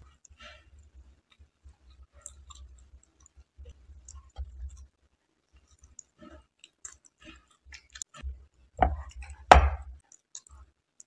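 Close-miked chewing and small wet mouth clicks of someone eating a soft Indian sweet, with two louder knocks close together near the end.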